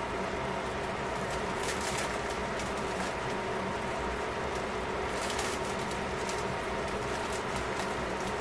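Sliced chicken simmering in bubbling liquid in a stainless steel pan: a steady bubbling with scattered small pops and crackles, thickest about two seconds in and again about five seconds in, over a steady hum.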